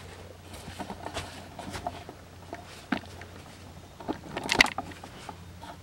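Scattered knocks and rustles of a handheld camera being moved and set down, with a louder burst of clattering about four and a half seconds in, over a faint steady low hum.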